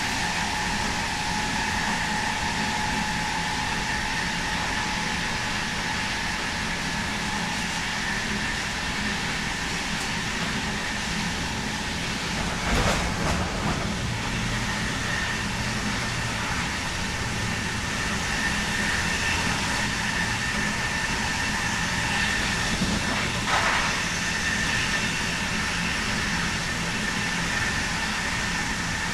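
A DB Class 101 electric locomotive under way, heard from the coach behind it: its ABB/Adtranz GTO traction inverter whines in steady high tones over the rolling rumble of the train. There are two brief clatters, about 13 and 24 seconds in.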